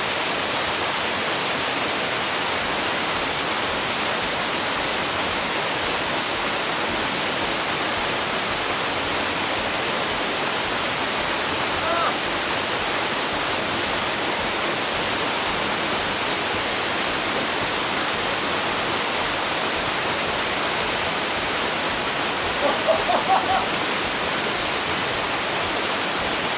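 Waterfall pouring in a steady, loud rush of falling water.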